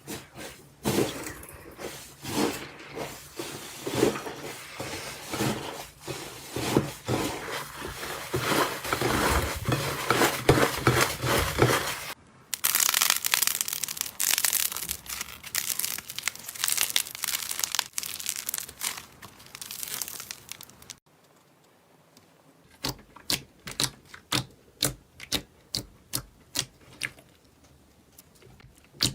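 Slime being squeezed and stretched by hand, giving dense crackling and popping. It cuts abruptly about 12 seconds in to a brighter, busier crackle. After about 21 seconds there is a short lull, then sparse sharp pops about two a second.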